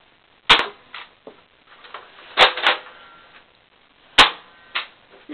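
Nerf Vulcan EBF-25 toy blaster firing and cycling: about six sharp, separate snaps at uneven gaps, the loudest about four seconds in.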